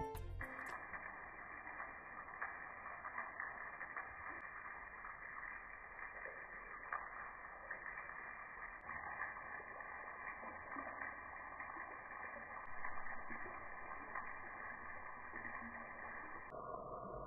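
Shower water spraying and running across a marble mosaic shower floor: a steady, faint hiss with small ticks, muffled, changing abruptly in tone near the end.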